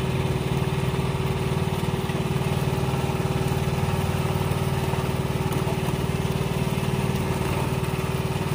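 A small engine running steadily, with a constant low hum and a fast, even pulse.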